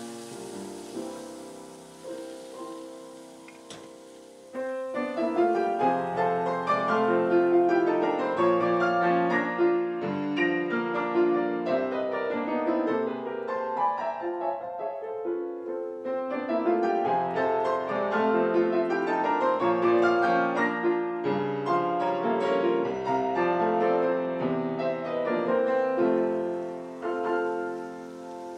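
Solo piano playing, soft at first, then fuller and louder from about four and a half seconds in.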